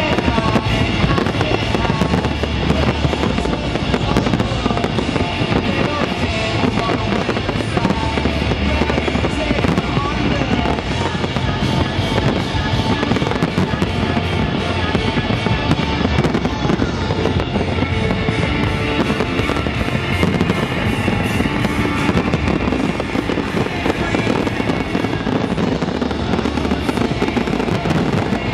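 A large fireworks display: shells bursting and crackling one after another without pause, with music playing along underneath.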